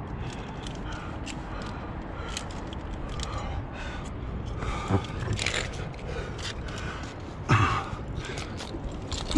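A rock climber breathing hard while jamming up a granite crack, with a short falling grunt or exhale about halfway and a louder one near the end. Scattered small clicks and scrapes of hands, shoes and gear on the rock sound over a steady low rush.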